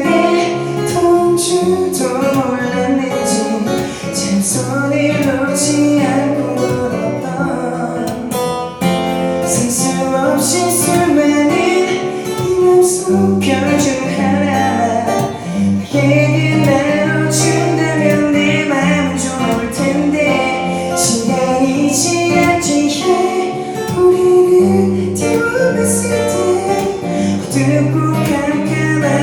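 Band music with strummed guitar, bass and drums, and a singing voice without clear words: an instrumental stretch of the song.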